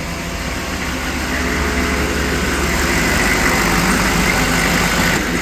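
1995 Chevy 3500's 6.5L Detroit Diesel V8 running just after a hard cold start, the sound swelling a little over the first few seconds and then holding steady. The engine has been struggling to stay running, which the owners think could be gelled fuel.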